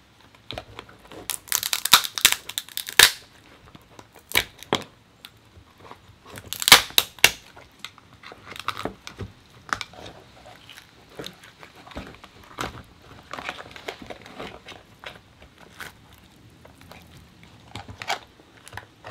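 Cooked lobster shell and meat being cracked and torn apart by hand: irregular crackling, snapping and tearing, with two louder bursts of cracking, about a second in and about seven seconds in.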